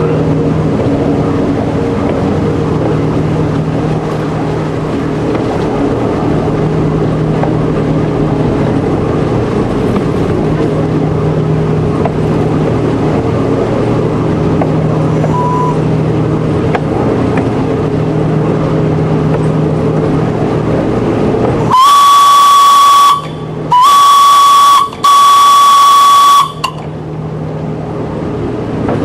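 Narrow-gauge railcar engine running steadily as it rolls along the track. Near the end come three loud, steady-pitched warning horn blasts of about a second each, back to back: the driver's signal on approaching a level crossing.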